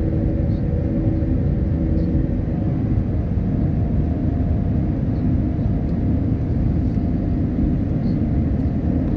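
Inside the cabin of an Airbus A320 climbing after takeoff: a steady, loud low rumble of the jet engines and airflow, with a faint hum over it. One strand of the hum drops away about two seconds in.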